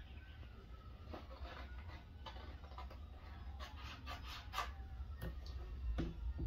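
Scattered light clicks and rustles of cardstock being handled for a sheath pattern, busier in the second half, over a steady low hum.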